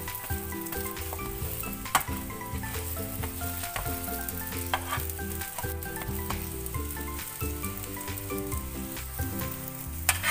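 Hotteok frying in oil in a non-stick pan, a steady sizzle, with a few sharp clicks of a metal slotted spatula against the pan as the pancakes are flipped and pressed flat.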